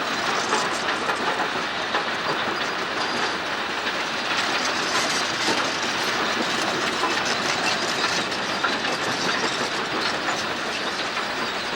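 Kobelco excavator travelling on its steel crawler tracks, the track links clattering steadily over the engine noise.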